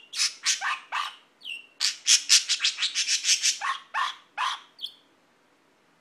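Budgerigar imitating a dog's bark: a rapid run of short, harsh bark-like calls, about four a second at their fastest, with a couple of brief chirps mixed in.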